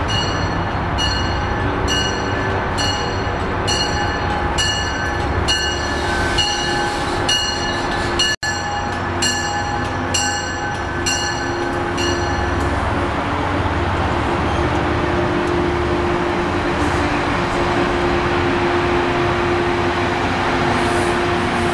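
A diesel push-pull commuter train's bell rings about once a second as the train rolls into the station, and stops about twelve seconds in. Then comes the steady rumble and low hum of the coaches and locomotive passing close by. The sound drops out for an instant about eight seconds in.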